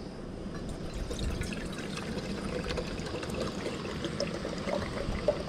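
Water pouring steadily from a plastic bottle into a stainless steel Stanley Boil + Brew pot, filling it.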